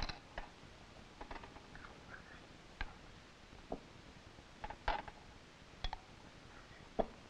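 A spoon clicking and scraping against scallop shells as creamed scallops are spooned into them: irregular light taps every half second to a second and a half.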